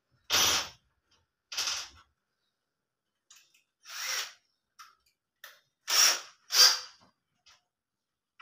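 Cordless drill-driver run in short trigger bursts, five in all, driving the screws that fix a handle to a wooden wardrobe door.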